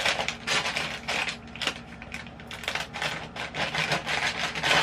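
Plastic courier mailer bag being handled and opened: irregular crinkling and rustling of the plastic, with quick scrapes and taps.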